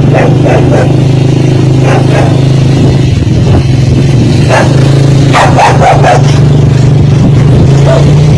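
Short dog barks, several in a row near the start and again about halfway through, over a steady engine running throughout.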